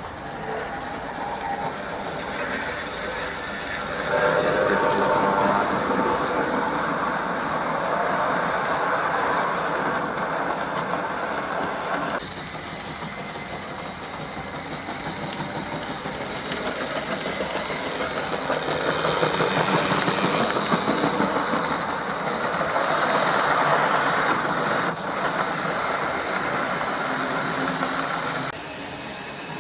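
Model train running on track laid on a bare board, its motor and wheels rattling along the rails. It grows louder as it comes close about four seconds in and again around twenty seconds, then drops away suddenly near the end.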